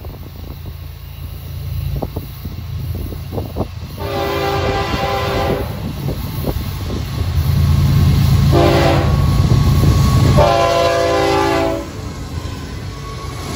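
Florida East Coast Railway freight locomotives sound the horn as they approach a road crossing: a long blast, a short one, then a long one, the close of the grade-crossing signal. Under the horn, the diesel engines' low rumble grows louder as the locomotives come up alongside, with a few sharp clicks of wheels on rail in the first seconds.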